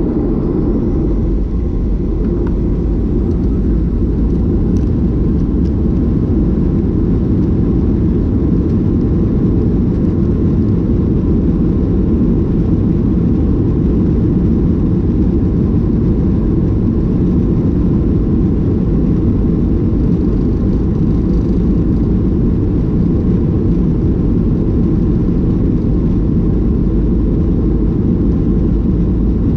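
Steady low rumble of a Boeing 737-800's CFM56 turbofan engines and rushing air, heard from inside the passenger cabin; it holds even throughout, with no change in pitch or level.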